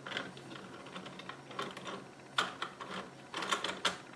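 Small plastic clicks and light clatter from a 3D-printed plastic gearbox model being handled and turned by hand, with a sharper click about two and a half seconds in and a quick run of clicks near the end.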